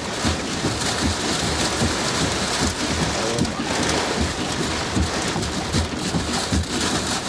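Wind-driven rain pelting a vehicle's windshield and body in severe thunderstorm winds gusting past 80 mph, heard from inside the vehicle. The wind shoves the vehicle in many uneven low thumps under a steady, dense hiss of rain.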